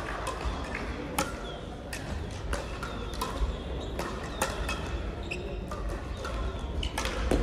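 Crossminton rackets striking speeders: a run of sharp, irregularly spaced hits, some louder and some fainter, over low background voices.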